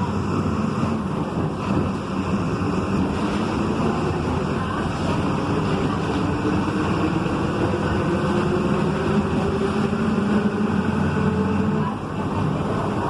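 Volkswagen 17.230 EOD bus under way, its driveshaft and transmission droning loudly over the engine. A whine climbs slowly in pitch through most of the stretch, then the sound dips briefly near the end.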